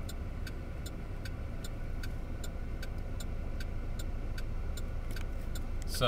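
Chevrolet Malibu turn-signal indicator clicking steadily, about two to three clicks a second, over a low steady hum.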